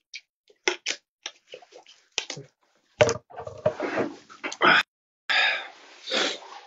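Handling noise close to a phone's microphone: a run of small clicks and taps from a plastic water bottle, then louder rustles and bumps from about three seconds in as the phone is moved.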